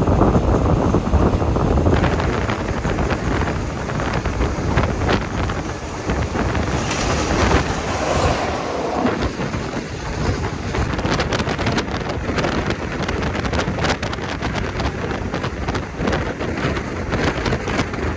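Passenger train running, heard from on board: a steady rumble with wind buffeting the microphone. A brighter rush of noise comes about halfway through, and rapid sharp clicks and knocks follow in the second half.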